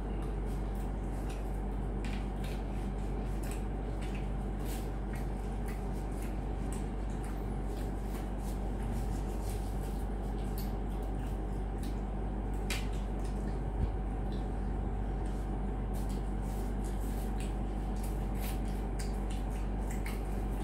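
Two people eating egg rolls: scattered small clicks and soft squishing sounds of chewing and handling the rolls, over a steady low hum.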